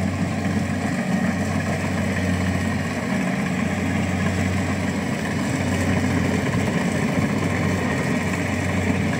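Engine of a rice combine harvester running steadily, with a low, even hum.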